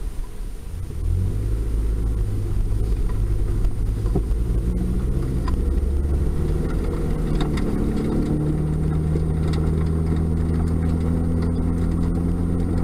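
Engine and tyre rumble of a Toyota Tacoma pickup driving on a wet road, heard inside the cab, getting louder about a second in as it picks up speed and then holding a steady engine tone.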